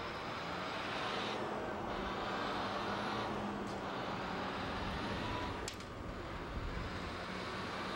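Street traffic noise: motor vehicles running along a city street, a steady hiss of engines and tyres with a faint low hum underneath.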